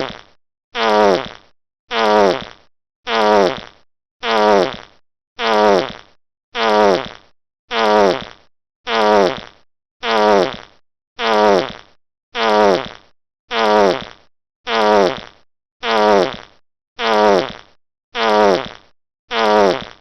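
Wet fart sound effect looped: the same fart, each well under a second long with a falling pitch, repeats evenly a little less than once a second, with silence between.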